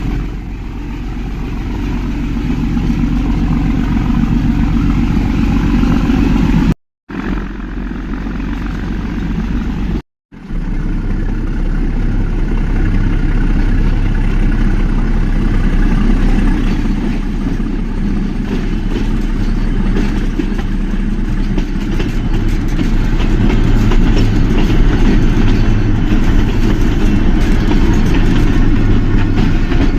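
Nilgiri metre-gauge toy train running, a steady rumble and rattle of the carriage on the track. It cuts out briefly twice, about 7 and 10 seconds in.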